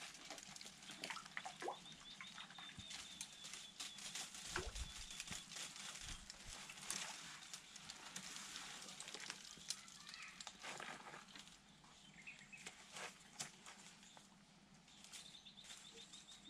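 Faint rural outdoor ambience: scattered small clicks and knocks over a quiet hiss, with a faint high, rapid ticking near the start and again near the end, and a few short chirps a little after the middle.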